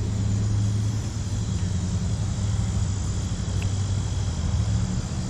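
A steady low mechanical hum, like a motor or engine running, with a faint high insect-like hiss behind it.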